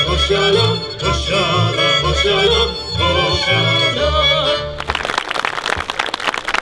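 Lemko folk band of accordion, fiddles and double bass playing a song with singing over a pulsing bass line; the music stops about five seconds in and the audience breaks into applause.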